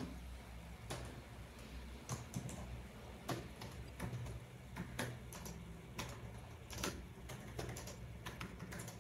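Typing on a computer keyboard: faint, irregularly spaced key clicks over a low steady hum.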